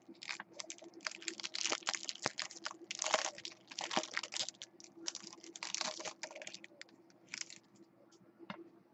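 Plastic trading-card pack wrapper being torn open and crinkled in the hands: irregular crackling rustles for about six seconds, then a few faint clicks as the cards are handled.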